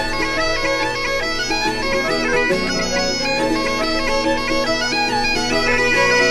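Intro music: a melody of changing notes played over steady held drone notes, in the manner of bagpipes.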